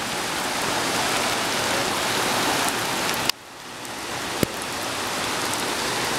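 Steady hiss of heavy rain and rushing floodwater. It cuts out abruptly about three seconds in, then builds back up, with a single sharp click about a second later.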